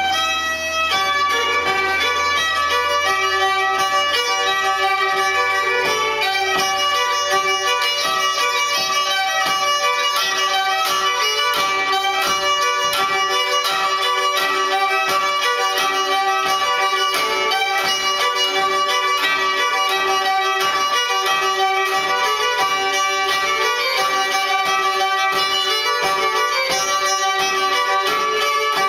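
A 19th-century fiddle playing an old tune. Sticks beat a steady rhythm of clicks on the fiddle's strings alongside the bowing, in the old fiddlesticks manner.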